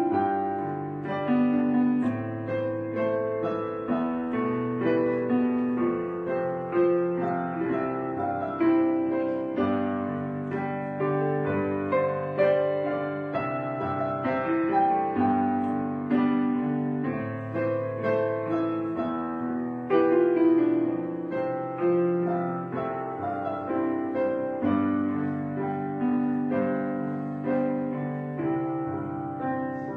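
Background piano music: soft sustained chords under a simple melody, new notes struck every second or two.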